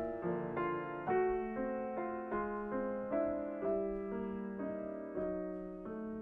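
Grand piano played solo: a slow melody over held chords, a new note or chord struck about every half second and left to ring.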